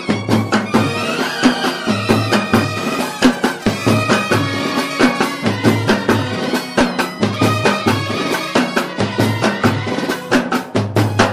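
Festive band music: drums beat fast and steadily under a sustained melody.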